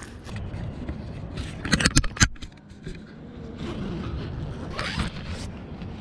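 Zipper on a double-zip tent door being tugged, its inner zip not closing: a cluster of short quick pulls about two seconds in and a longer pull rising in pitch around five seconds in.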